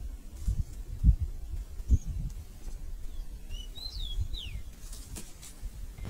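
A small bird calling, a few quick high chirps and downward-sliding notes about halfway through, over low bumps and rumble in the first couple of seconds. A few short clicks or rustles follow near the end.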